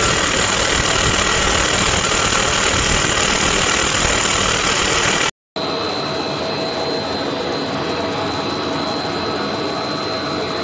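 Steady, loud running noise of a puffed-snack food extruder line. It breaks off for a moment about five seconds in, then carries on slightly quieter with a thin, steady high whine.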